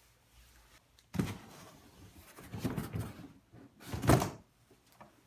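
Cardboard box being opened and its packaging handled: a sudden scrape and rustle about a second in, more rustling around three seconds, and a louder bump a little after four seconds.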